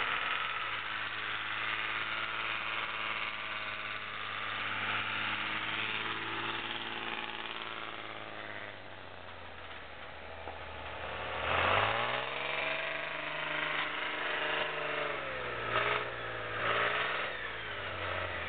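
Engine of a tracked snow vehicle running as it drives over snow. The engine runs steadily at first, then revs up about two-thirds of the way in, and rises and falls twice more near the end.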